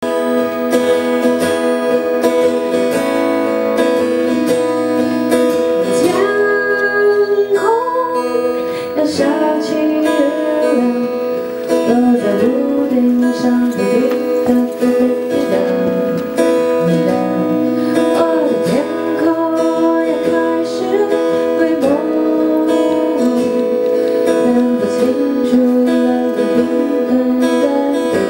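Live acoustic song: steel-string acoustic guitar fingerpicked and strummed, with a woman singing a slow melody that comes in over the guitar about six seconds in.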